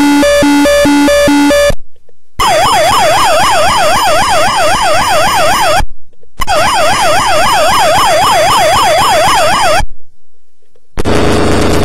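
Circuit-bent toy steering-wheel siren sounding electronic siren effects. It starts with a two-tone hi-lo siren, then after a short break a fast warbling wail that rises and falls about three times a second, played twice with brief breaks. Near the end it turns into a harsh, crackling noise.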